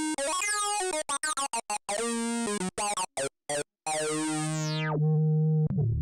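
Nord Wave 2 synthesizer playing a bright, buzzy patch: a run of short, detached notes that jump in pitch, then a held note whose brightness closes down quickly as if the filter is swept shut, and a low sustained note near the end.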